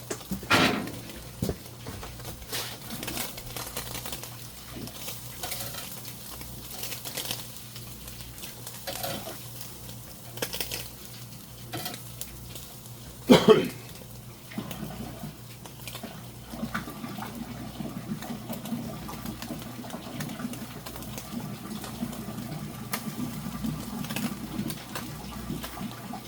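Tableware and utensils clinking and knocking now and then over a steady low hum, with one louder clatter about thirteen seconds in.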